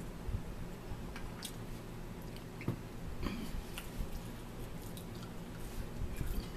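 A person chewing food, eating french fries and a vegan burger, with soft wet mouth sounds and a few light, sharp clicks.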